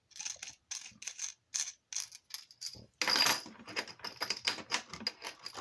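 Irregular small clicks and light rattles of precision screwdrivers being handled and swapped, with a brief louder clatter about three seconds in.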